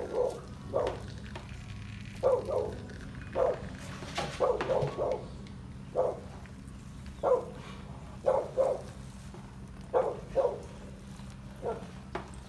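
A dog barking over and over, short barks singly and in pairs about once a second, over a steady low hum.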